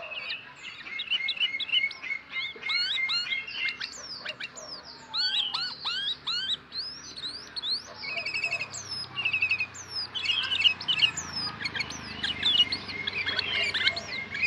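Sooty-headed bulbul (kutilang) calling: a busy, continuous run of short chirps and whistled notes sliding up and down in pitch, some overlapping.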